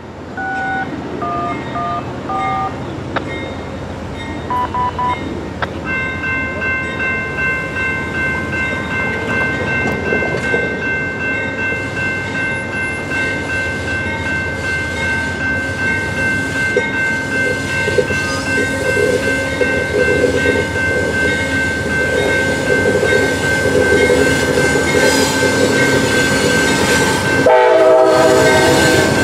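Amtrak diesel locomotive's K5LA air horn sounding as the train departs: a long steady chord from about six seconds in, held to the end. Beneath it the locomotive and wheels rumble, growing louder as the train draws nearer.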